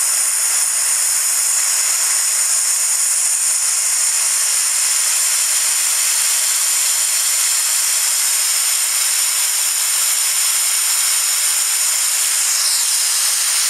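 Compressed air hissing steadily as it is forced through a 1.6 mm nozzle into a venturi tube and onto a small fan blade, at about 3.8 litres a minute. The hiss sits high and echoes a little inside the tube.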